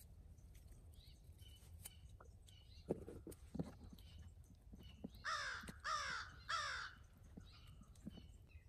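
A crow cawing three times in quick succession, about two-thirds of the way through. Before that come a few light clinks of a spatula against a stainless steel mixing bowl.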